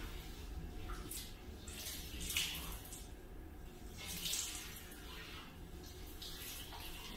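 Handheld shower head spraying water and splashing, a hiss that swells and fades every second or two as the spray is moved about.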